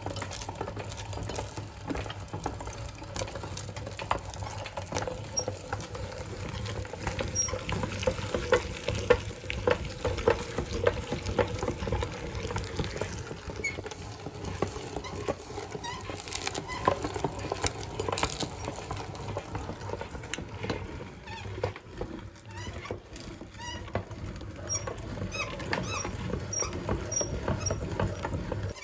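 Meat grinder working ice cream through: a steady low motor hum under dense, continuous crackling and clicking from the soft, cold mass being forced through the grinder.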